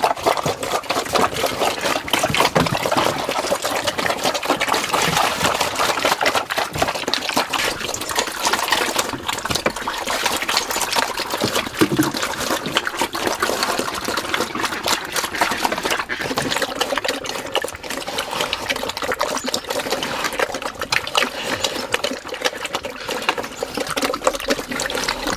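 Pigs eating wet feed from a wooden trough: a steady stream of rapid wet chomping, smacking and slurping.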